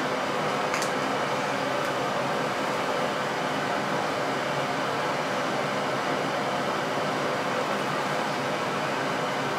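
Bathroom ceiling exhaust fan running with a steady whir and a faint steady hum. Two brief clicks sound right at the start and about a second in.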